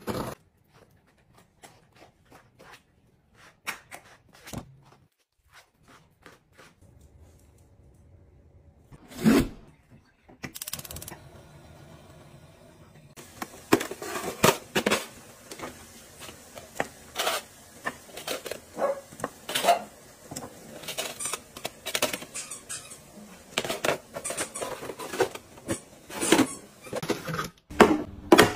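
Close-up handling sounds of unboxing: scattered clicks, taps and scrapes of cardboard packaging and plastic lids and containers. Sparse at first, with one louder knock about nine seconds in, and busier from about thirteen seconds on.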